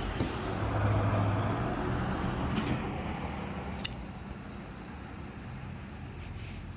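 A vehicle passing by, its low hum and noise swelling to a peak about a second in and then fading away over the next couple of seconds. One sharp click comes near the middle.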